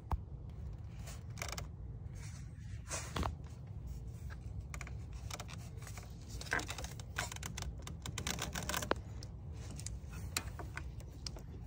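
Scattered light clicks, taps and rustles of a belt tool and socket being fitted onto the serpentine belt tensioner and handled in a car's engine bay, over a steady low hum.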